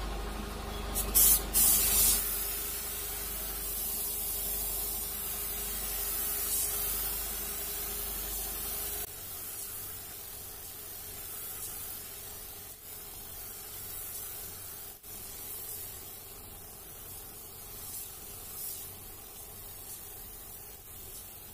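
Gravity-feed spray gun hissing steadily as compressed air sprays paint onto a car body, louder in short bursts about one to two seconds in. A low steady hum underneath stops about nine seconds in.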